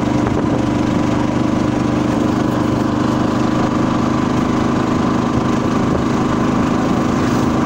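Engine of a moving vehicle heard from on board, running at a steady, even pitch with road noise underneath.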